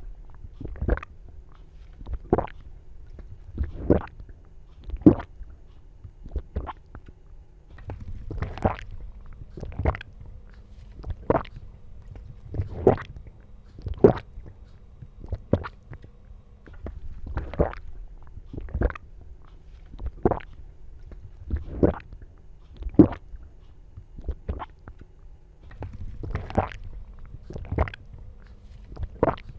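A person gulping, swallowing hard again and again, about one gulp every second and a half.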